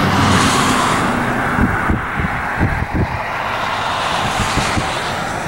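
A moving car: a steady rush of road and wind noise over a low rumble, with a few low thumps around the middle.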